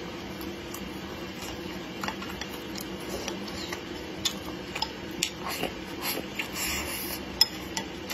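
Wooden chopsticks clicking and scraping against a ceramic bowl as food is picked up, a scattering of sharp clicks, along with close-up chewing. A faint steady hum runs underneath.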